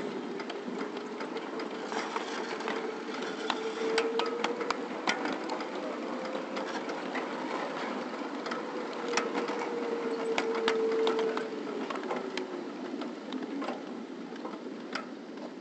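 A ride-on 1/8-scale (7.5-inch gauge) backyard train running along its track: steady mechanical clatter from the running gear, with sharp clicks from the wheels on the rails and a wavering tone that fades out about twelve seconds in.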